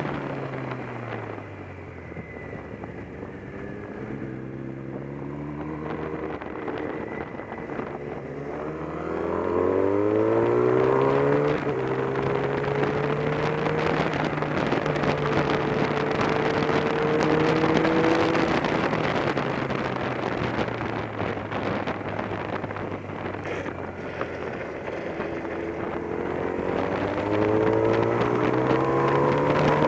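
Motorcycle engine in riding, easing off at first, then revving up with an apparent gear change about twelve seconds in, holding a steady pitch, slowing again and revving up near the end. Wind rushes steadily over the sound.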